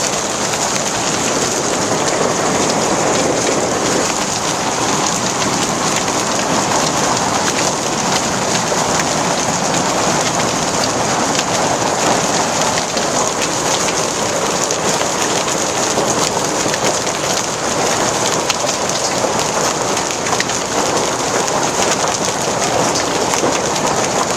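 Hailstorm: hail and rain pelting down, a dense, steady clatter of countless small impacts.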